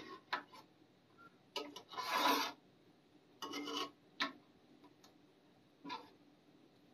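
A handful of short scrapes and rubs from a knife and a metal spoon over a copper frying pan as peeled boiled eggs are sliced into it, the longest and loudest scrape about two seconds in.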